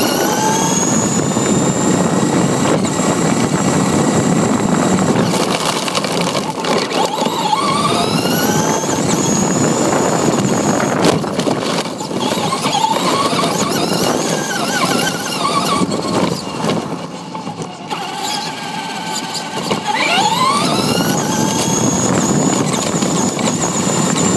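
Electric RC truck's motor whining up in pitch each time it accelerates, near the start, about a third of the way in and again near the end, over the steady rough noise of its knobby tyres on asphalt and grass, heard up close from the camera on the truck.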